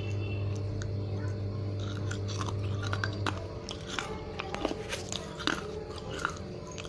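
Crunching and chewing of pieces of baked clay pot and chalk. Sharp crunches begin about two seconds in and are loudest and most frequent in the second half, over a low steady hum that stops about halfway through.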